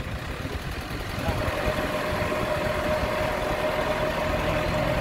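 Six-wheel dump truck's engine running, with a steady whine that comes in about a second in as the sound grows a little louder.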